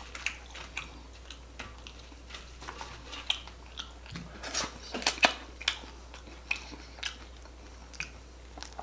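Close-up chewing and biting of air-fried pork belly: wet mouth sounds with scattered short crunches and clicks, a few louder ones about halfway through.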